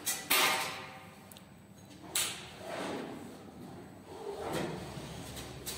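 Knife tool on a CNC flatbed cutting machine's head being raised: a sudden rush of sound just after the start that fades over about a second, a short knock about two seconds in, and a low steady hum from about four seconds in.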